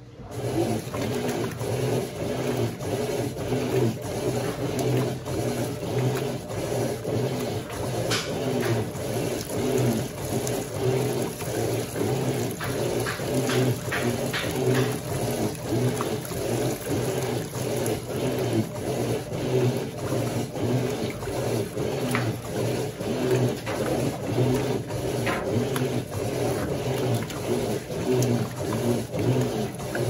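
Electrolux LQ11 top-load washing machine agitating: water sloshes in a steady, pulsing back-and-forth churn over the motor's hum. It cuts in abruptly and winds down near the end, a short spell of agitation in a cycle that agitates very little.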